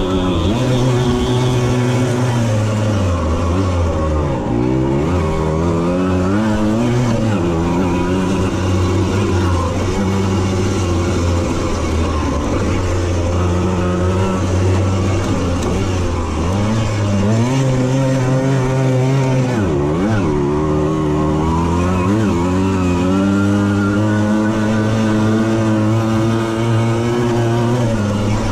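Small two-stroke moped engine running hard, heard from on board. Its revs drop away and climb again several times as the rider backs off and opens the throttle through the turns.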